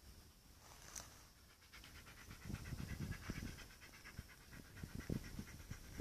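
A dog panting quickly, starting about two seconds in, over low rumbling thumps.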